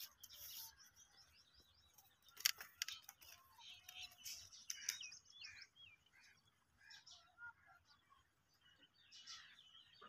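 Several small birds chirping and calling, faint, with many short notes and a few quick upward-curling whistles. There is a brief sharp click about two and a half seconds in.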